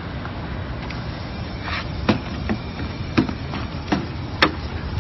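Sharp knocks and taps, about five of them in two and a half seconds starting around two seconds in, as white glossy wooden floor panels are laid on concrete and pushed together at their joins. A steady low rumble sits underneath.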